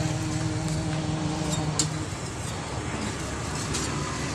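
Steady engine hum with a low drone that fades about two seconds in, over street noise, with a few sharp clicks.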